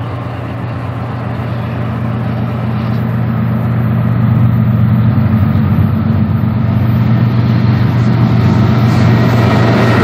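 Three BNSF diesel locomotives at the head of a freight train running with a steady low engine drone, growing louder over the first few seconds as they approach and then holding loud as they come alongside.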